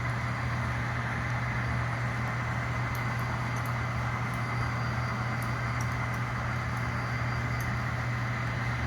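HO scale SD40-2 model locomotive's sound system playing a steady diesel engine drone, with a few faint light ticks.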